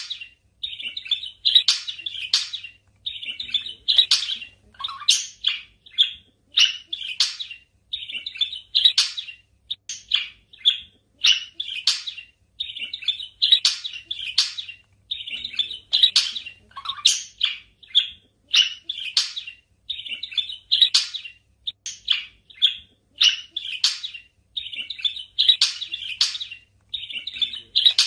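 Budgerigars chirping and warbling: a continuous stream of short, high chirps with no pauses.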